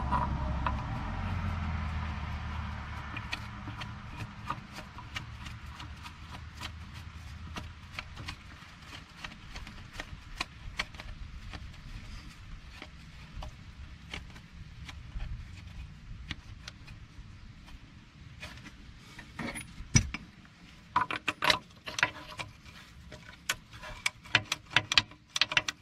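Small sharp metallic clicks and scraping as a grease fitting (zerk) is turned in by hand on an excavator's track tension adjuster, the clicks coming thicker and louder in the last few seconds. A low rumble fades out over the first several seconds.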